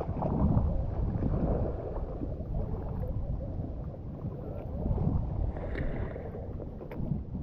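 Water sloshing around a person wading, mixed with wind buffeting the microphone, heard as an uneven low rumble.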